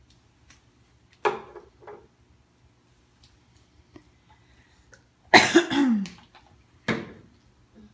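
A person coughing three times: about a second in, again just past five seconds in the longest and loudest with a falling voiced tail, and once more near seven seconds.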